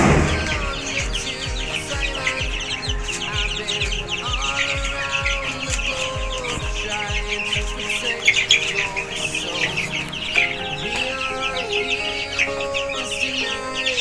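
A flock of young chickens peeping busily, many short high chirps overlapping. Background music plays under them, with a steady beat that drops out about halfway through.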